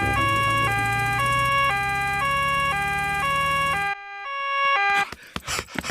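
Cartoon ambulance siren sounding a two-tone nee-naw, switching between a high and a low note every half second over a steady engine hum. The engine hum drops out about four seconds in, and the siren stops about a second later, followed by a few short knocks.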